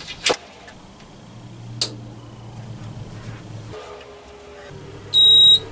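Anycubic Photon resin 3D printer just after power-on: a sharp click, a low steady hum that drops out for about a second, then one short, loud, high-pitched electronic beep near the end.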